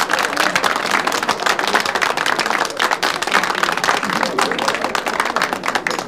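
Audience applauding, with voices mixed in; the clapping thins out near the end.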